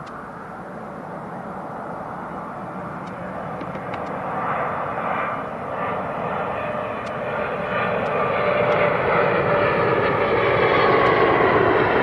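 Jet airliner engines running, a steady rushing noise with a faint whine that grows steadily louder as the aircraft comes closer.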